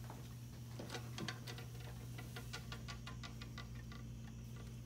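Rapid, even clicking from the movement of an antique Lenzkirch Black Forest wall clock, about six clicks a second, starting about a second in and fading out after a few seconds, over a steady low hum.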